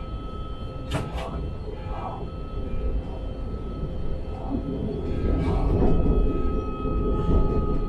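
Talent 3 electric multiple unit running on the track, heard from the driver's cab: a steady electric whine of several held tones over wheel-on-rail rumble. A couple of sharp clicks come about a second in, and the rumble grows louder in the second half.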